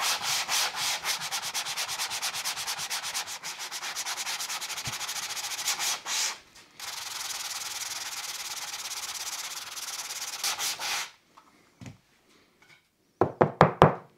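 Hand sanding with a sanding block on a plywood strip, fast back-and-forth rubbing strokes that smooth down filled screw holes. It pauses briefly about six seconds in, then rubs more steadily until about eleven seconds. A short burst of loud strokes comes near the end.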